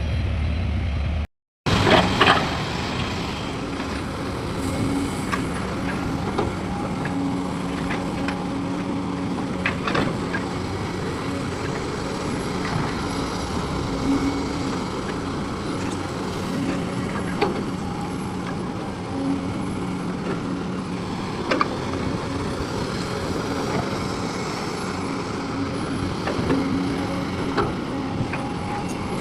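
Heavy diesel engine of earthmoving machinery running steadily, with scattered knocks and clanks. The sound drops out for a moment about a second in, then comes back with a loud clatter.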